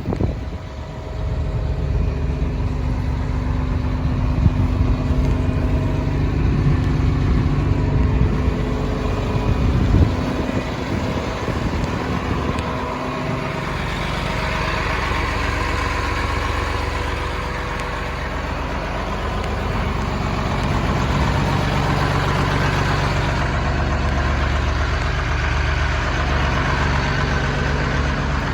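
Caterpillar 336E L excavator's diesel engine running steadily at idle, with a sharp knock about ten seconds in.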